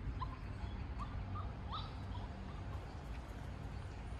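Birds chirping: several short, rising chirps scattered over a steady low rumble of outdoor background.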